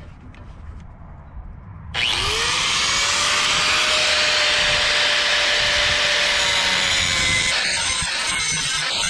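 Electric angle grinder switched on about two seconds in, its motor whine rising as the disc spins up, then running steadily with a harsh grinding noise as the disc works against the metal of the tank's mounting bracket.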